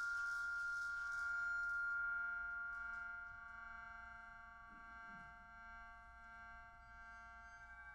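A percussion ensemble holding a sustained chord of pure, ringing metallic tones that slowly fade, with no new strikes. A high, hiss-like shimmer dies away in the first couple of seconds.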